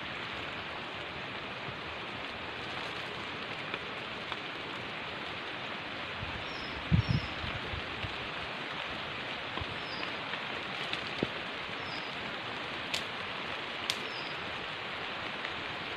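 Rain falling steadily, with a couple of low thumps about seven seconds in.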